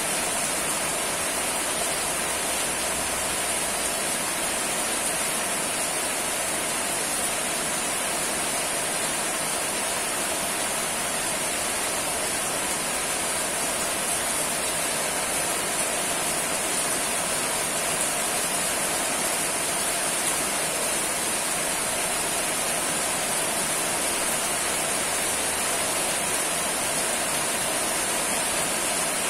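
Steady rain falling, an even, unbroken hiss with no separate drops or events standing out.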